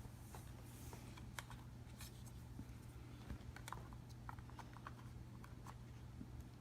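Faint, scattered small clicks and taps of a laptop SODIMM memory module being handled and slid into its slot, over a steady low hum.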